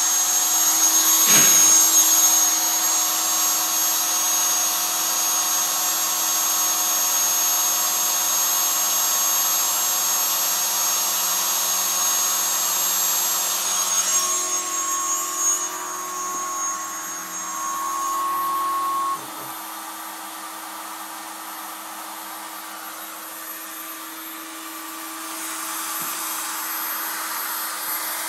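Home-built CNC router running steadily with a steady motor whine as it engraves wood with a 2 mm three-flute cutter. About two-thirds of the way through, it gets noticeably quieter.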